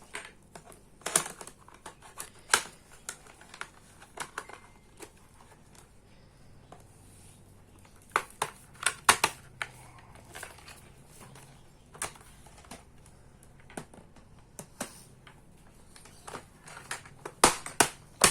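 Scattered clicks and knocks of hard plastic baby-walker parts being handled and snapped together during assembly, with sharper clicks about a second in, around eight to nine seconds in, and near the end.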